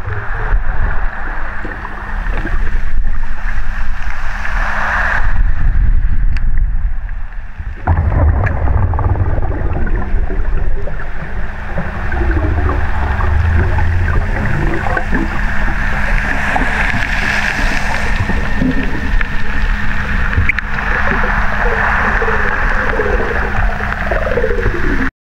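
Underwater sound picked up by a camera in a waterproof housing: a loud, steady low rumble of water with a constant low hum running through it. The rumble changes suddenly about eight seconds in, and a few short gliding squeaks come near the end.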